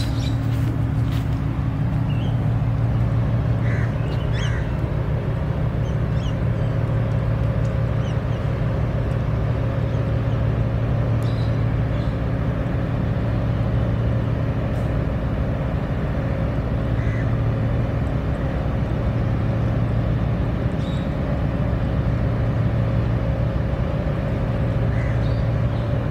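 A steady low mechanical hum, like an engine running, with a constant tone through it. A few faint short chirps sound high above it now and then.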